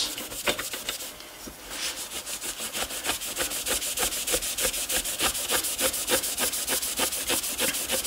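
Cloth rag rubbing a brass door-chime resonator tube with Brasso polish: quick, even back-and-forth strokes, several a second, with a brief lull about a second in.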